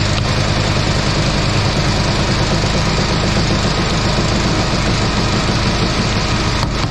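Gas engine of a hydraulic log splitter running steadily under load as the ram pushes a white oak round through the wedge, with a few sharp cracks near the end.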